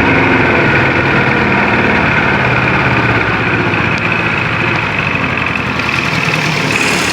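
1980 Johnson 25 hp two-cylinder two-stroke outboard motor running, eased back from higher revs just as the sound begins and then running steadily at low speed. A hiss rises near the end.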